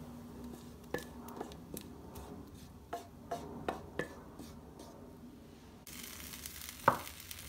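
Wooden spoon scraping and tapping inside a saucepan as thick béchamel sauce is scraped out: a scattering of short clicks and scrapes, then one sharp knock near the end, the loudest sound.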